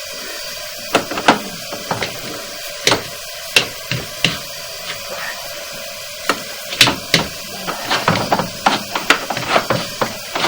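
Irregular clicks and knocks over a steady hum, from a sewer inspection camera's push cable and head being fed through the drain line and knocking in the pipe. The knocks come more often in the second half.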